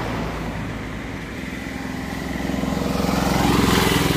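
A motor vehicle's engine running and drawing nearer, growing louder to a peak near the end as it passes close by.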